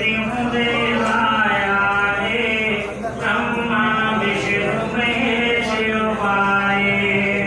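A man chanting a devotional recitation into a microphone. It moves in long sustained phrases, mostly on one steady pitch, with a short breath break about three seconds in.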